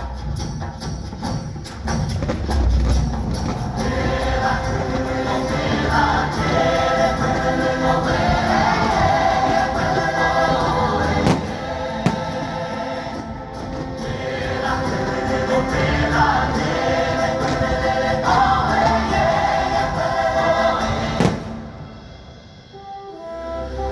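Fireworks show soundtrack of choir singing with orchestral backing, heard over park loudspeakers, with a few sharp bangs from firework bursts about halfway through and again near the end. The music dips briefly just before the end, then comes back.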